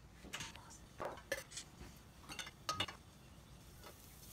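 Several light, scattered clinks and knocks of kitchen utensils against a frying pan and dishes.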